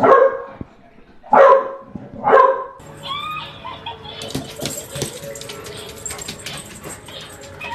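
A dog barks three loud, short barks about a second apart, then goes quiet. A lower, steady background with a few faint high calls follows.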